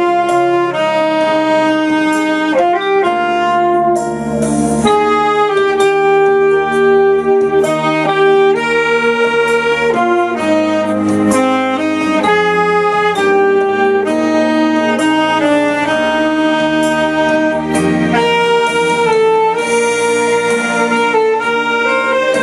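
Saxophone playing a melody of held notes over a sustained backing accompaniment.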